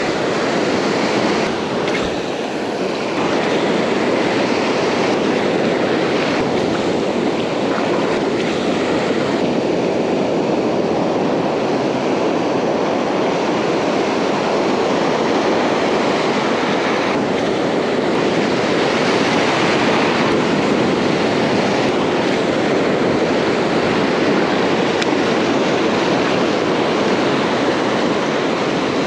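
Steady roar of ocean surf breaking and washing up the sand, with wind buffeting the microphone.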